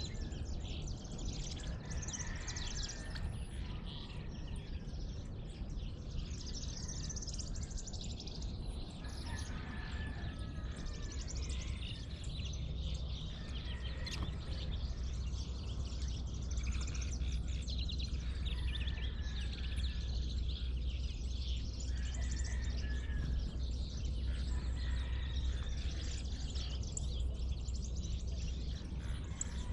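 Dawn chorus of many songbirds chirping and singing at once, over a steady low rumble that grows louder about halfway through.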